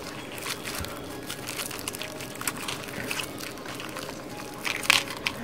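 Quiet handling noises from small plastic bags and screws: light rustling and scattered small clicks, with a louder cluster of clicks and rustling near the end.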